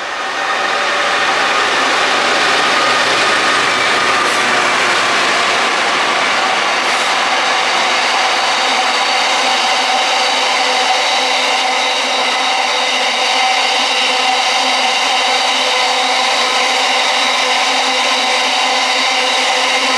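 Container freight train running through the station close by: loud, steady rolling noise of the wagons, with a steady whine ringing over it. The noise swells up in the first second.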